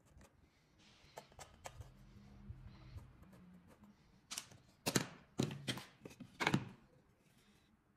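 Knocks and taps of hand tools and wood on a workbench during hand-cut dovetail work: light scattered clicks, then four or five sharper knocks a little past the middle.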